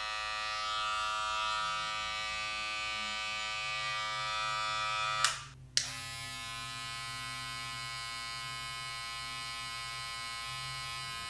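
Two Gamma+ cordless hair clippers running one after the other with a steady electric buzz. The first stops with a click about five seconds in; the second switches on half a second later and runs a little quieter. The phone sound meter reads about 88 for the first and 83 for the second.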